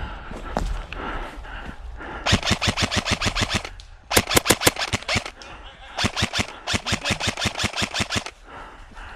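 Airsoft rifle firing on full auto in three bursts of rapid, evenly spaced shots: one about two seconds in, a shorter and louder one around four seconds, and a longer one from about six to eight seconds.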